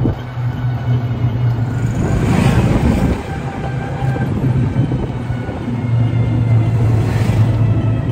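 Motor tricycle running steadily while under way, heard from inside the open-sided cab: a constant low engine hum with road and wind noise. Two brief swells of rushing noise come about two and seven seconds in.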